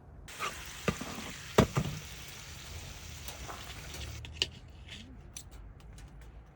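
Food sizzling in a frying pan, with a few sharp knocks of a utensil against the pan; the sizzle cuts off about four seconds in, leaving light clicks.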